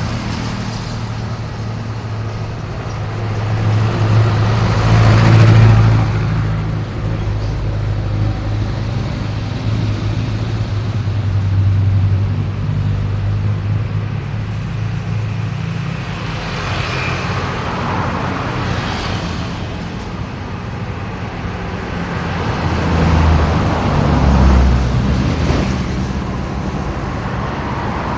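Road traffic: a steady low hum of car and heavier vehicle engines with tyre noise, as vehicles pass one after another. The loudest pass swells and fades about five seconds in, with further passes around seventeen and twenty-four seconds in.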